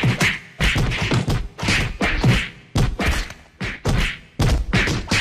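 Movie-style punch sound effects: a rapid string of hard hits, about two a second, each a low thump with a short slapping tail.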